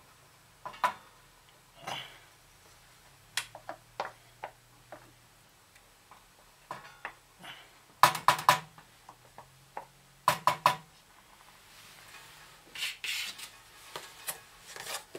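A utensil clinking, tapping and scraping against metal cookware as canned cream soup is spooned into the pot. There are scattered light knocks, with two quick runs of rapid taps about eight and ten seconds in, and some softer scraping near the end.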